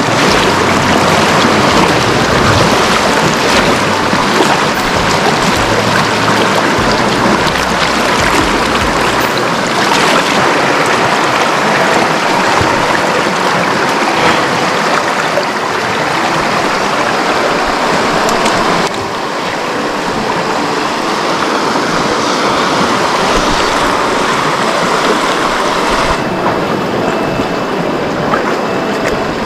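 Rushing river water, a loud steady rush, from a river running high in the rainy season. The sound changes abruptly twice, about two-thirds of the way through and again near the end.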